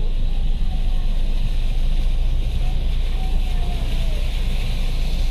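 Car driving through shallow floodwater, heard from inside the cabin: a steady low rumble of engine and tyres, with an even hiss of water washing around the wheels.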